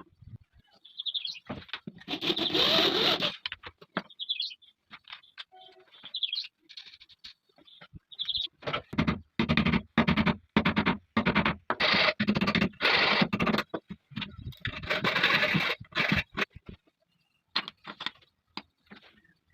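Hand-tool woodworking noises in short cut-together bursts: a run of scraping strokes on wood, about two a second through the middle, with a few brief high chirps early on.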